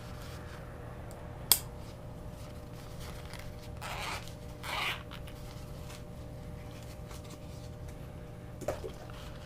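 Handling of an earbud carrying case and its contents: one sharp click about a second and a half in, two short rustling scrapes a few seconds later, and a small click near the end, over a steady low hum.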